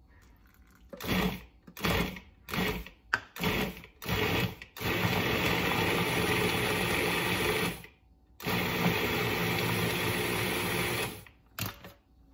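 Food processor motor pulsed in about six short bursts, then run in two longer stretches of about three seconds each, cutting butter and ice water into flour for pie crust dough.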